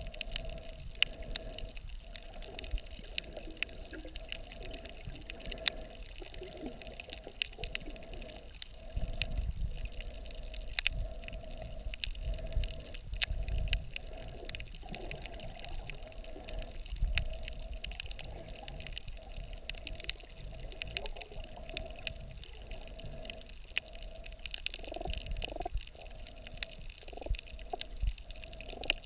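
Underwater sound picked up by a camera held under the water: a low sloshing rumble of moving water that swells and fades, with many scattered sharp clicks and crackles and a wavering hum.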